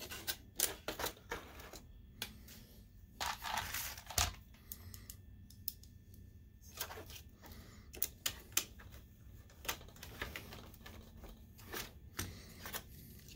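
Scattered sharp clicks and taps of a plastic cooling fan, its sheet-metal bracket and a screw being handled and fitted into a projector, with a longer scrape about three seconds in.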